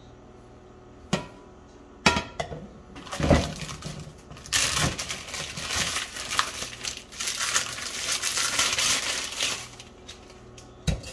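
Plastic bag crinkling and rustling as a frozen block of ground beef is handled and unwrapped, after a click and a couple of knocks in the first few seconds.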